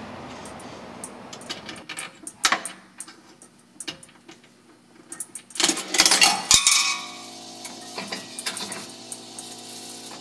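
Coins put into a vintage photobooth's coin mechanism, clattering down through it loudly about six seconds in, after a few lighter knocks. A steady mechanical hum follows from the machine.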